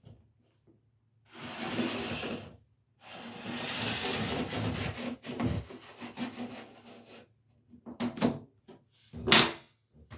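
Rubbing and scraping in two long stretches, then a few sharp knocks near the end.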